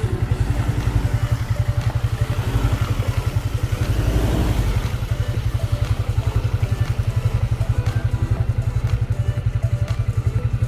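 Vehicle engine running with a steady low throb that swells briefly about halfway through.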